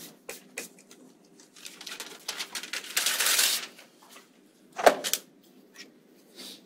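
Paper rustling and being handled, with scattered small clicks and taps, and a sharp knock about five seconds in.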